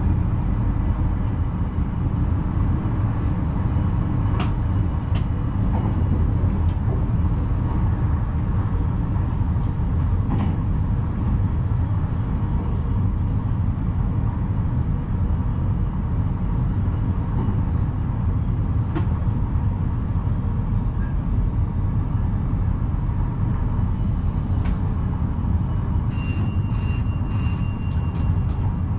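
VIRM double-deck electric train running steadily, heard from inside the driver's cab: a continuous low rumble with a few sharp clicks. Near the end, three short high beeps sound in quick succession.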